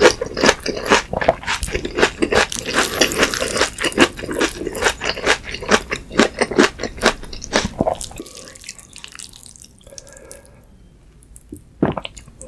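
Close-miked wet chewing of black-bean-sauce instant noodles and cube steak: rapid wet mouth clicks and smacks that die down after about eight seconds, with a single sharp click near the end.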